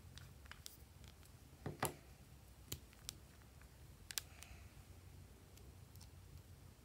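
A few sharp plastic clicks and taps as a small plastic makeup container and its caps are handled, the loudest about two seconds in, over a faint steady hum.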